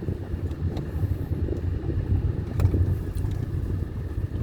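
Car on the move heard from inside the cabin: a steady low rumble of engine and tyres on the road, with a few faint clicks or rattles.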